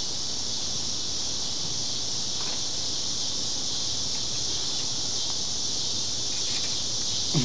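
A steady, high-pitched chorus of insects droning without pause.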